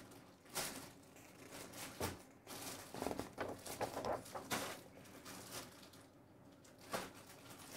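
Paper rustling and light handling noises: a string of soft, irregular brushes and taps.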